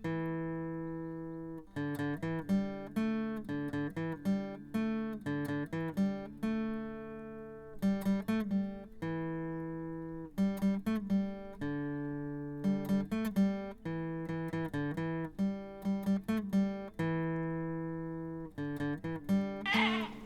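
Background music: acoustic guitar picking and strumming a repeating pattern of notes.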